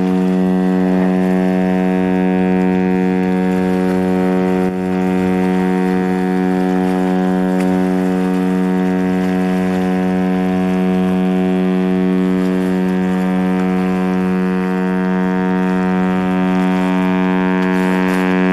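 Container ship CMA CGM Hydra's whistle sounding one long, steady, low blast with no break, part of a horn signal held for nearly a minute as the ship enters port.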